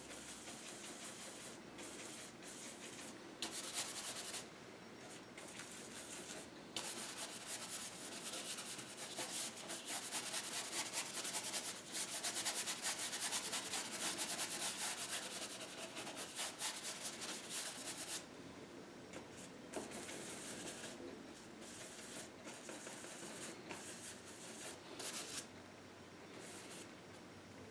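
Paintbrush rubbing acrylic paint onto the painting in quick back-and-forth strokes, a dry scratchy rubbing that comes and goes in stretches and is busiest through the middle.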